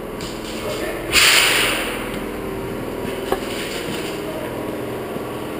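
A sudden loud burst of hissing about a second in, fading away over about half a second, over a steady droning hum. A single sharp click a little past the middle.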